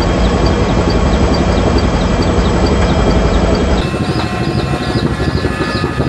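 Firefighting helicopter running steadily, heard from on board, with a regular beating rhythm over a steady roar. About two-thirds of the way through, the deep rumble drops away abruptly.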